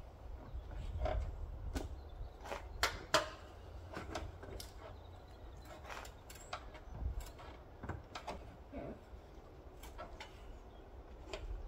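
Small metallic clicks and ticks of a spanner working a copper brake pipe union nut, scattered irregularly with a few sharper ones about three seconds in, over a low steady rumble.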